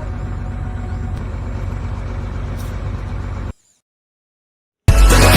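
Steady low machine hum that cuts off abruptly about three and a half seconds in. After a second of silence, loud electronic music starts near the end.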